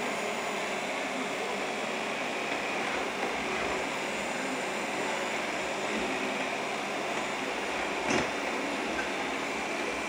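Shark robot vacuum running steadily, with a single short knock about eight seconds in.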